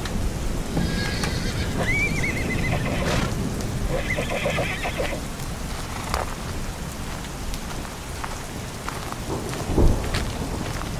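A horse whinnying in two calls during the first half, over steady rain. A single low thump comes near the end.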